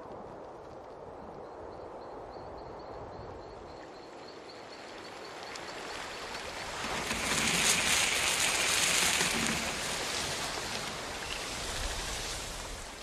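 Night-time ambient sound effects: a steady wash of wind-like rustling with a faint, high, regular chirping in the first few seconds, swelling into a louder rushing whoosh about seven seconds in, then dying away at the end.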